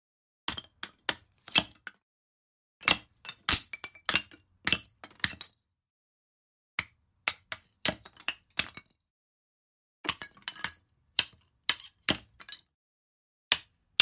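Footsteps on loose stones, each step a short clinking crunch of stones knocking together. The steps come in runs of two to four with silent pauses between them.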